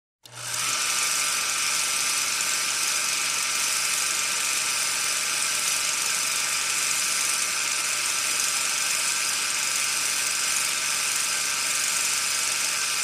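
A steady mechanical whir with a dense hiss and a low hum, like a small motor running, fading in quickly at the start and holding even throughout.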